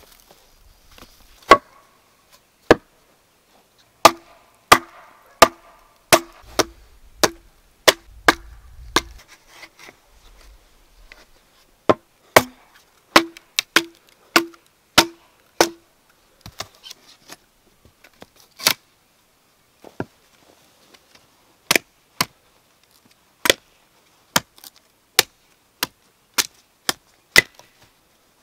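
Hatchet chopping a wooden board on a stump block: sharp strikes at about one and a half a second, each with a short ringing tone from the board, then more irregular strikes in the second half.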